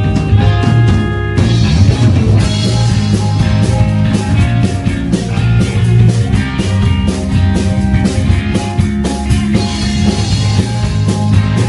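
Live rock band playing: electric guitar, bass guitar and drum kit, with a strong steady bass line under regular drum hits.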